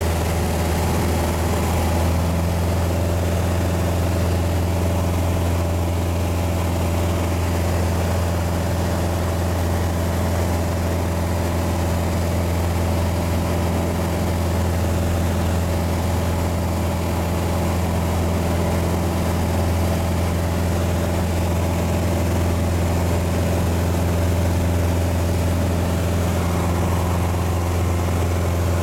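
Piper PA-28 light aircraft's piston engine and propeller droning steadily, heard from inside the cabin in flight.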